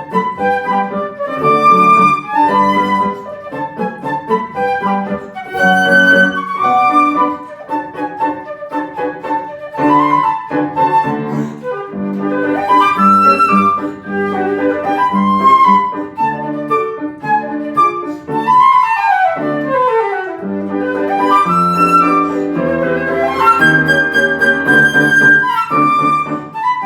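Flute playing a lively galop over piano accompaniment, with a fast descending run about two-thirds of the way through.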